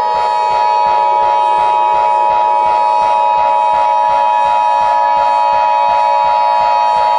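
Emergency Alert System attention signal: the two-tone alert (853 and 960 Hz sounded together) held steadily and loudly. Under it runs a droning background with a low pulse about four times a second.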